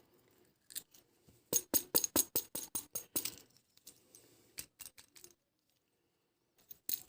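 Small graphite discs of a sewing-machine pedal's carbon-pile speed regulator rattling as the pedal is shaken to settle them into their stack: a quick run of clicks about 1.5 s in, lasting under two seconds, then a few scattered clicks.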